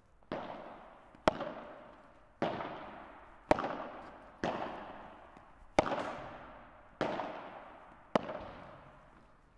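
Padel ball being struck back and forth with rackets in a forehand feeding drill: eight sharp hits in four pairs about a second apart, each hit followed by an echo.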